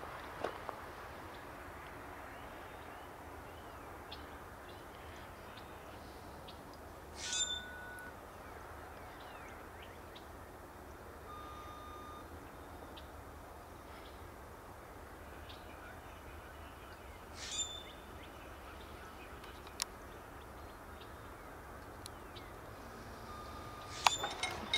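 A bird calling outdoors: a short call twice, about ten seconds apart, and a couple of brief clear whistled notes, over a faint steady hiss. A few sharp clicks near the end.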